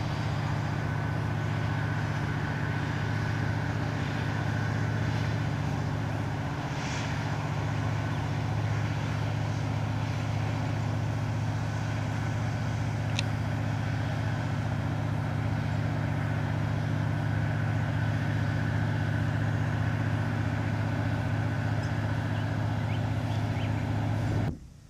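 Tugboat's diesel engine running steadily under load while pushing a loaded gravel barge: a low, even drone with a faint higher tone above it. It cuts off suddenly near the end.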